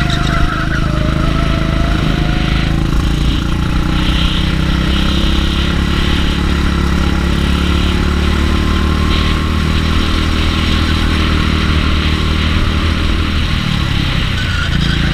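Go-kart engine running at speed, heard close up from on board the kart. Its pitch rises over the first couple of seconds as it accelerates, holds steady, then drops briefly near the end as the driver lifts for a corner before rising again.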